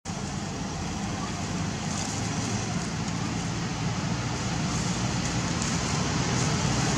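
Steady outdoor background noise with a low rumble, slowly growing a little louder.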